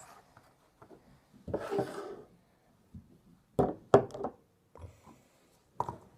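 Pots of slime being gathered up and handled on a hard surface: a brief rustling scrape, then a few sharp knocks and clicks.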